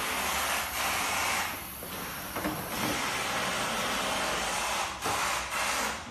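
DEVVIS robot lawn mower running, its motors giving a steady hissing whir as it drives over artificial turf. The noise eases off for about a second around two seconds in.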